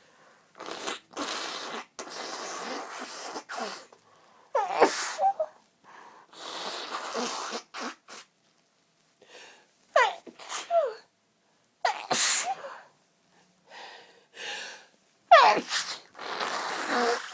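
A fit of violent human sneezes: about four loud, sudden sneezes, each ending in a falling vocal sound, the last the loudest, with long breathy sounds between them.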